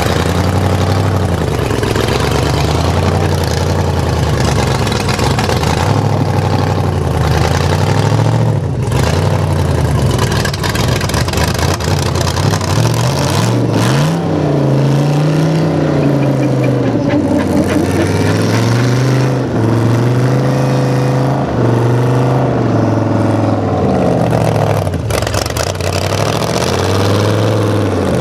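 Off-road competition truck's engine revving hard, its pitch rising and falling again and again as the throttle is worked on and off.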